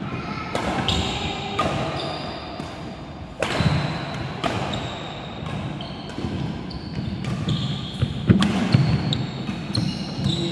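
Doubles badminton rally: a string of sharp racket strikes on the shuttlecock, with shoes squeaking briefly and footfalls thudding on the wooden court floor.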